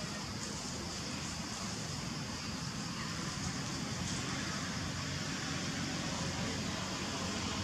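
Steady outdoor background noise: a constant low rumble under a high hiss, with no distinct sound standing out.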